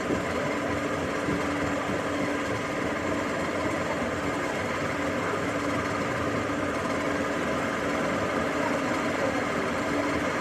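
Workshop machinery running steadily, a constant motor hum with an even mechanical whir and no pauses or impacts.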